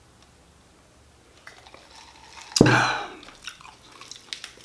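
Quiet swallowing while drinking from a glass mason jar. About two and a half seconds in comes a sudden loud sound, then soft wet clicks and ticks as a fried chicken wing is pulled apart by hand.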